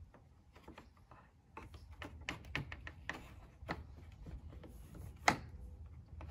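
An interior panel tool working the plastic push clips along the top of a Jeep Wrangler JK's grille: scattered small clicks and scrapes, with one sharper click about five seconds in.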